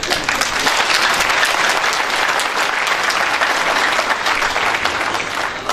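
A crowd applauding, dense clapping that starts all at once and carries on steadily.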